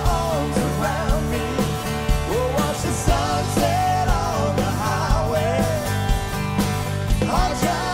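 Country-rock band playing live: a lead vocal melody over strummed acoustic guitar, electric guitars and a drum kit keeping a steady beat.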